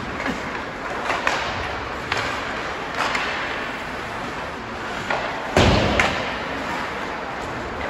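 Knocks and thuds in an ice hockey rink from the puck and players hitting the boards: roughly one knock a second at first, then a heavy thud a little past halfway with another knock just after, over an echoing rink background.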